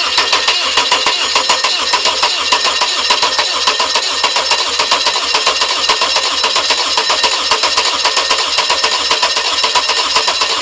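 Starter motor cranking a new Viking 130 fuel-injected aircraft engine over on its first start, a steady fast rhythm that does not catch: there is no fuel in the engine yet, and the injectors have not built up fuel pressure.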